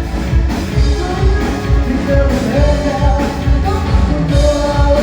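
Background music: a song with a singing voice over a steady beat of about two pulses a second.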